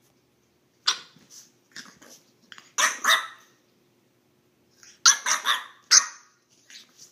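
French bulldog puppy barking in excited play: a string of short, sharp barks in two bunches, starting about a second in, with the loudest barks around five to six seconds in.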